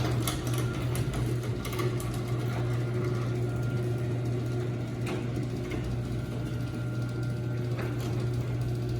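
LiftMaster 1345 garage door opener running steadily as it closes the door, a continuous motor hum with no rattle from its light lens and housing, which have been refitted tight to stop them vibrating.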